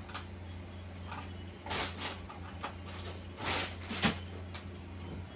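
Makeup products and packaging being handled and rummaged through: a few rustles and knocks, with a sharp click about four seconds in, over a steady low hum.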